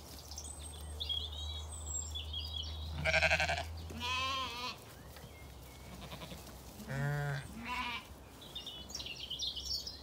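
Zwartbles sheep bleating: a loud bleat about three seconds in, a second one right after, and two more around seven and eight seconds. Birds twitter in the orchard trees near the start and again near the end.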